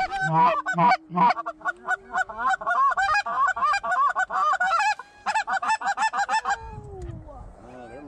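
Canada geese honking and clucking: many short, rapid, overlapping calls that stop fairly suddenly about six and a half seconds in.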